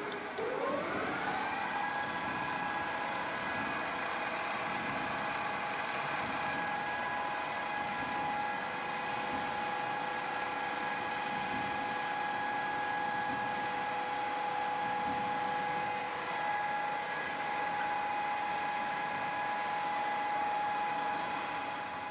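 Guangzhou C6240A geared-head lathe running with its chuck spinning: just after the start the whine of the headstock gears rises in pitch for a second or two as the spindle speeds up, then holds steady.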